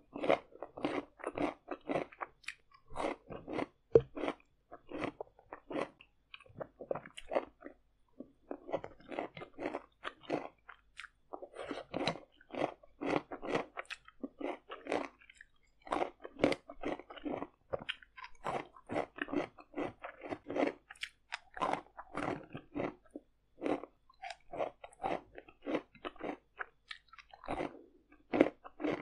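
Loud, close-up chewing and crunching of stir-fried noodles with crisp vegetables such as carrot and green bean, in quick runs of crackly bites with short pauses. A sharp, loud crunch comes about four seconds in.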